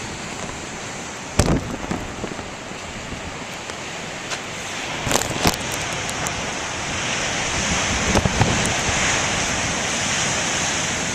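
Large ocean waves breaking and washing ashore, with wind buffeting the microphone in a few sharp thumps. The wash swells into a loud hiss over the second half.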